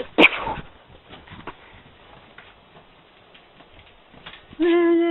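Dogs' claws tapping and scrabbling softly on the floor after a brief sharp click at the start. Near the end a dog starts one long, steady whine that bends in pitch.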